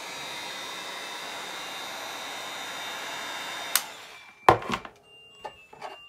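Hot-air blower running with a steady rushing noise and a thin high fan whine, heating a tabletop. It switches off with a click a little before four seconds in and winds down; a couple of loud knocks follow about half a second later.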